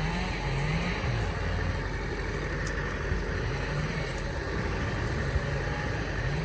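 Tata 407 4x4 light truck's diesel engine running as the truck crawls over a rough dirt track, its pitch rising and dropping several times in the first second and a half, then holding fairly steady.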